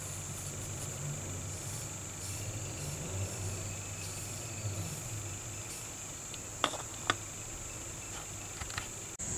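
A steady high-pitched trill, insect-like, runs over a low hum. Two sharp clicks come about six and a half and seven seconds in, with a few faint ticks shortly after.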